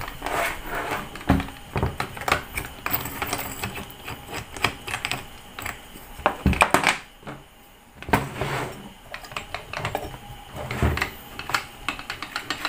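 Irregular clicks, knocks and metallic clatter from a Stanley STGS8100 angle grinder being handled while its grinding disc and flange nut are unscrewed and taken off. The loudest knocks come about two-thirds of the way through.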